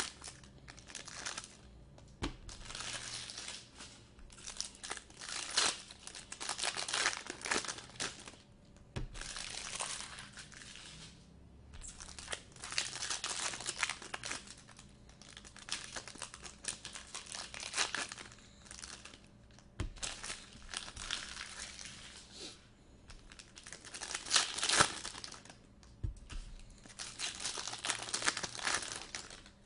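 Foil wrappers of 2018 Bowman Chrome baseball card packs being torn open and crinkled by hand, in repeated bursts of crackling with short lulls between.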